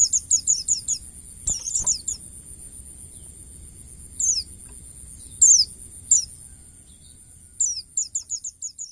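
White-eye (pleci) singing its ngalas song: quick runs of short, high, falling chirps, several a second, broken by pauses. A steady high tone sits underneath.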